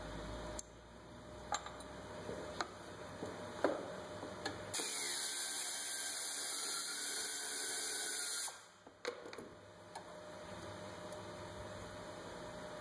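Work under the hood: scattered small metal clicks and clinks of bolts and tools, with a steady hiss lasting about four seconds in the middle.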